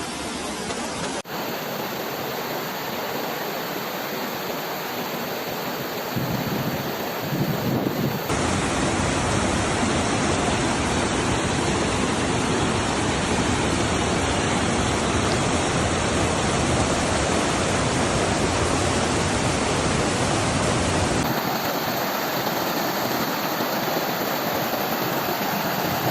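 Stream water rushing over a waterfall, a steady rushing noise. It turns louder and deeper about eight seconds in and thins out again a few seconds before the end.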